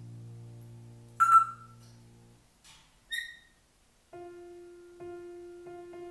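African grey parrot giving two short, loud whistled calls, about a second in and about three seconds in. Instrumental background music with held low notes stops after about two seconds, and a new piece with repeated keyboard notes starts about four seconds in.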